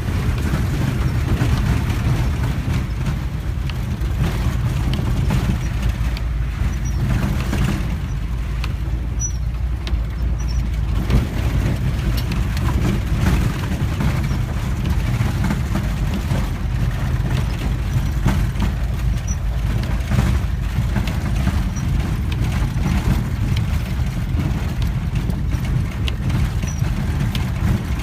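Volkswagen bus being driven, its engine running steadily under frequent knocks and rattles.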